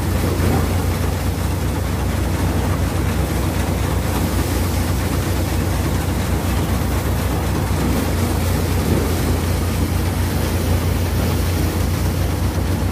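Tractor-driven Dasmesh paddy thresher running steadily under load as paddy is fed in, a continuous deep hum from the drum and fans under a constant rushing noise.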